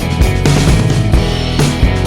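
Background music: upbeat rock with guitar and a steady drum beat.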